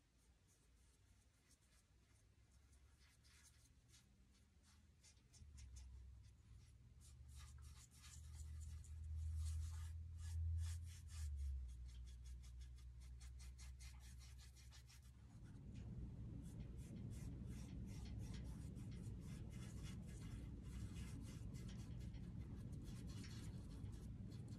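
Small paintbrush dabbing and stroking acrylic paint onto a painted board: faint, quick scratchy taps. A low hum comes in about five seconds in and grows fuller about fifteen seconds in.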